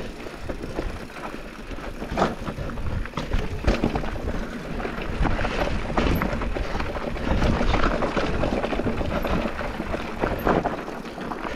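Focus SAM² mountain bike descending a rocky trail: tyres rolling over dirt and stones, with frequent irregular knocks and rattles from the bike as it hits rocks.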